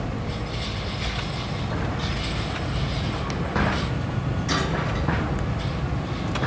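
Heavy salvage machinery running steadily: a low engine drone with mechanical clatter, with two short sharp knocks a little past the middle.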